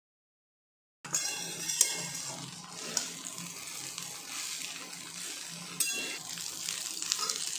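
A metal spoon stirring pasta, chicken and vegetables in a metal pan on the heat, starting about a second in: a steady sizzle with the scrape of the food being turned and a few sharp clicks of the spoon against the pan.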